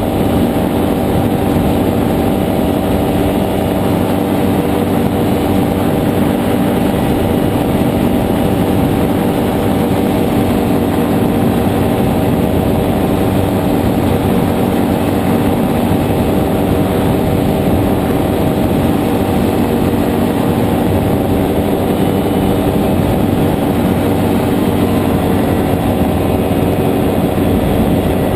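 Nano trike's JPX 320 engine running at a steady throttle in flight, driving its pusher propeller: an even drone that holds the same pitch and loudness throughout.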